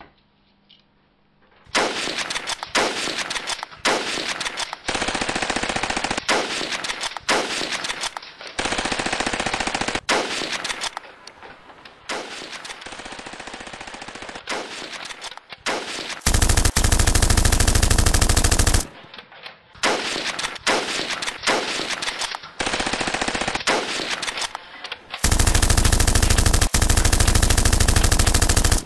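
Rapid automatic gunfire in long bursts with short breaks between them. The two loudest and longest bursts start about 16 and 25 seconds in.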